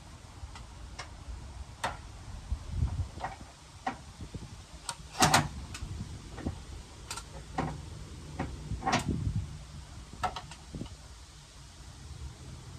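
Irregular clicks and knocks of hand tools working on a pickup's front-end panels and clips, with one louder clatter about five seconds in.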